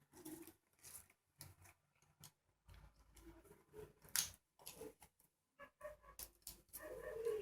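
Scattered small clicks, taps and scrapes of hands working on a grounded wall socket's plastic and metal parts and wires, with one sharper click about four seconds in.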